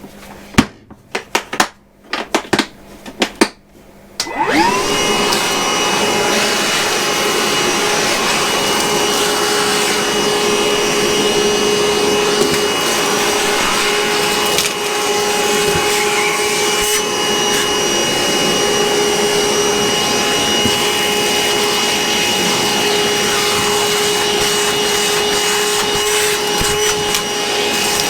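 A few sharp knocks and clicks, then a Milwaukee M18 cordless shop vac switches on about four seconds in, its motor spinning up quickly to a steady whine that runs on.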